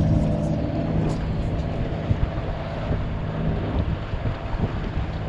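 A sailing yacht's engine running steadily under way, with wind buffeting the microphone.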